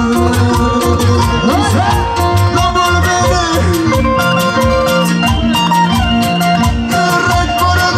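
Live band music in a Latin American folk style, with a steady bass beat under sustained melody lines.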